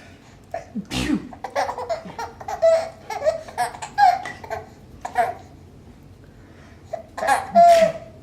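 A person sneezes about a second in, and a baby answers with a string of short laughs. Another sneeze near the end sets off more laughing.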